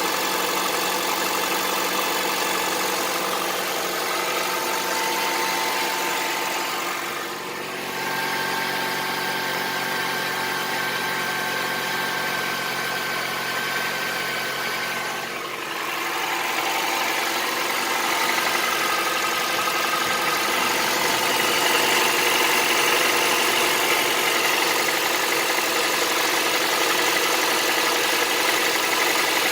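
Honda CR-V 2.4-litre four-cylinder petrol engine idling from a cold start with a diesel-like knock. The owner places the knock on the left side and does not take it for the valves, which he has adjusted. He says the knock grows slightly as the engine warms and is gone once it is fully hot. The sound dips briefly twice and gets a little louder in the second half.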